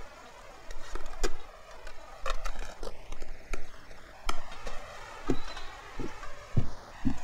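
Spoon clicking against a plate a few separate times. From about five seconds in, a steady low thudding starts, about twice a second.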